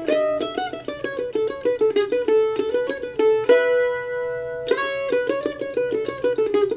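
Solo F-style mandolin played with a pick in fast single-note runs, with one note held ringing for about a second around the middle before the quick runs resume.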